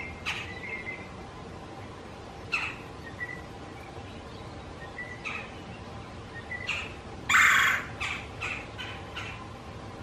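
Male red-bellied woodpecker calling: a series of short harsh calls, a few seconds apart at first and then in quicker succession, the loudest and longest (about half a second) coming about seven seconds in. These are his mating calls to a female.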